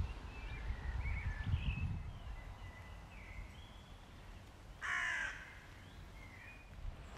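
A crow gives one loud, harsh caw about five seconds in, over faint, scattered chirps of small birds. A low rumble sounds during the first two seconds.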